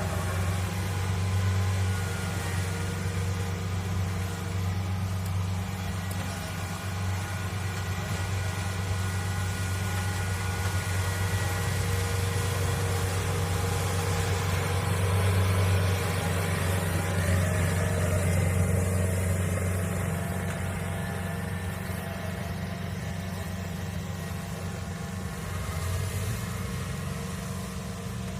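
Kubota DC70 Plus combine harvester's diesel engine running steadily: a deep, continuous hum with overtones, easing off slightly over the last several seconds.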